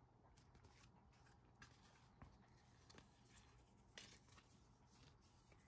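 Near silence: room tone with a few faint clicks and rustles, the sound of small items being handled.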